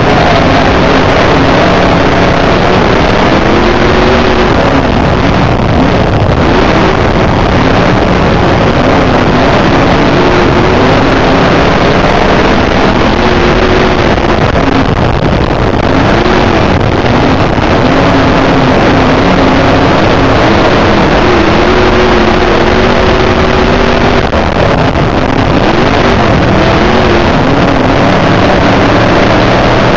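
IMCA dirt modified's V8 racing engine running hard, heard from inside the cockpit. It is loud and its pitch keeps rising and falling as the car is driven through the turns, with wind rush over the microphone.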